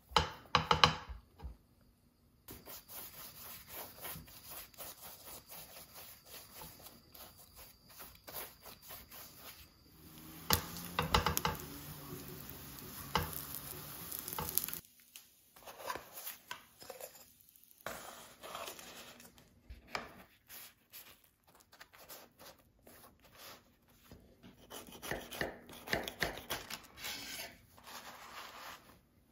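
Tortilla wraps toasting in a stainless steel skillet: a steady light sizzle, with knocks and scrapes as the wraps are set down and turned in the pan. Near the end, quieter clicks and rustles as the toasted wraps are cut on a wooden cutting board.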